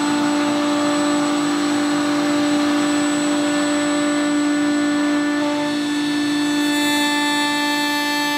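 Table-mounted router running at full speed with a steady high whine, its bearing-guided pattern bit trimming a wooden cot leg along a template. Extra high-pitched tones join in near the end as the cut goes on.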